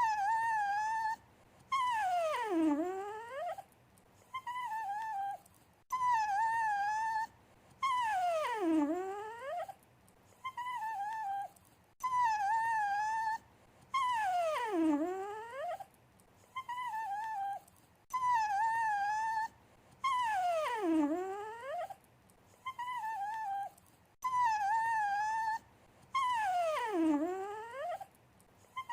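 Dog whining and whimpering in a pleading, attention-seeking way. Each time, a short wavering whine is followed by a longer whine that drops in pitch. The same pair repeats about every six seconds.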